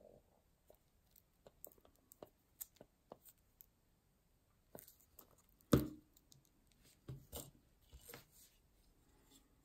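Quiet handling noises: the foil wrapper of a chocolate egg crinkling and small clicks under the fingers. A louder knock comes a little over halfway, as the egg or the plastic toy hammer meets the table, followed by a couple of lighter knocks.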